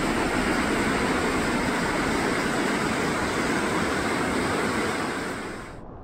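Steady, loud rushing noise with no distinct tones, the sound of moving water or wind, which cuts off abruptly just before the end.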